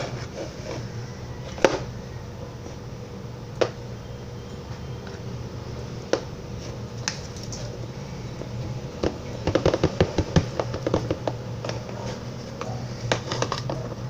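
Slime being handled and transferred between plastic containers: scattered sharp clicks and taps, then a quick run of sticky crackles and squishes about ten seconds in, over a steady low hum.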